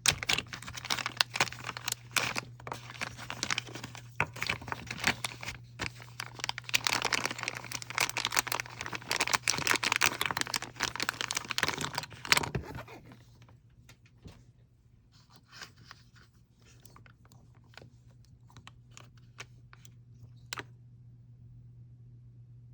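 A plastic packaging bag crinkling and being torn open, for about thirteen seconds. Then come a few faint scattered clicks of small items being handled. A steady low hum runs underneath.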